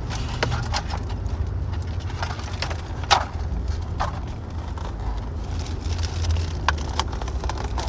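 Clear plastic toy bag crinkling and small plastic parts clicking as they are handled, with scattered sharp clicks. Underneath runs the steady low rumble of the car cabin.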